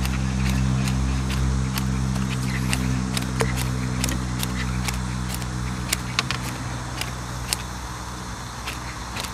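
A steady low motor hum, fading away over the last couple of seconds, with scattered sharp clicks over it.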